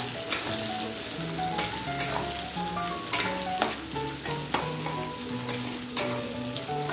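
Sliced onions and cumin seeds sizzling in hot oil in a metal kadhai while they brown, with a metal spatula stirring and scraping the pan several times. A soft background music melody plays underneath.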